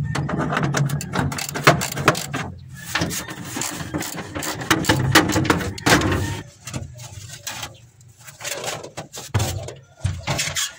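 Metal clatter and scraping of a wrench and sheet-metal floor access panel as the cover over a Suzuki Multicab's engine and transmission is unbolted and lifted off. The clattering is busy for the first six seconds or so, then thins to scattered knocks.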